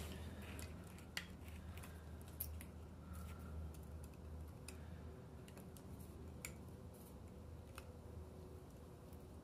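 Faint, scattered clicks and scrapes of needle-nose pliers working at the rubber O-ring on a Honda Accord distributor's metal housing, over a low steady hum.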